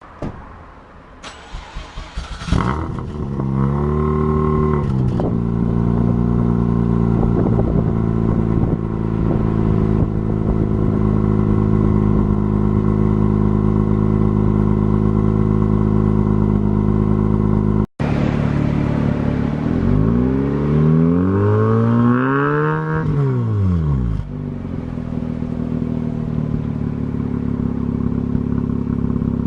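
Mazda RX-8's two-rotor rotary engine, side-ported, running through a straight pipe and large-bore ERC muffler, a little loud. It fires up about two seconds in with a short rev, settles to a steady idle, and after a cut is revved up and back down once before dropping back to idle.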